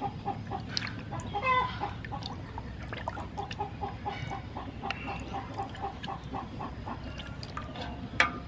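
Chickens clucking steadily, a run of short notes about five a second, with a louder, higher call about a second and a half in and again around four seconds. A sharp click near the end.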